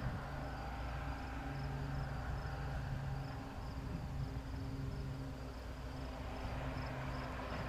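A steady low engine hum with insects chirping over it in an even rhythm, about two chirps a second.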